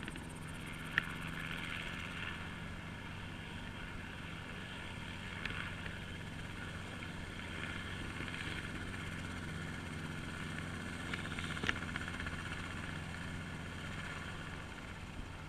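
A helicopter flying in the distance, its engine and rotor running steadily. Three sharp clicks are heard, one near the start, one in the middle and one late on.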